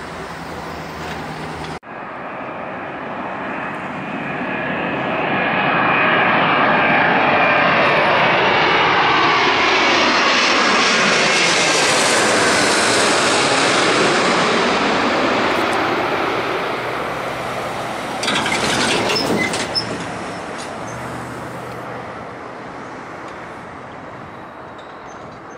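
British Airways Boeing 777-236ER on final approach passing low overhead, its GE90 turbofans building to a loud whine and rush. The pitch slides down as it passes, and the sound fades away as it heads toward touchdown, with a short burst of other noise near the end.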